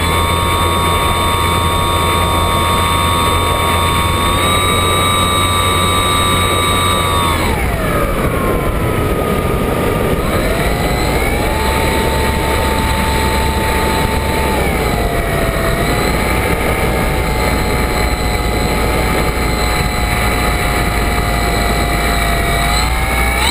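Intermezzo flying wing's motor and propeller whining in flight, heard from a camera on the plane, with wind rushing over the microphone. The whine holds steady, falls sharply about seven seconds in, climbs back a few seconds later and dips once more, then rises again at the very end.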